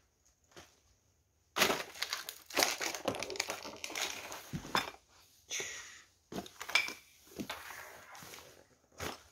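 Footsteps crunching and crackling over debris on a littered floor, in irregular runs of crunches with short pauses.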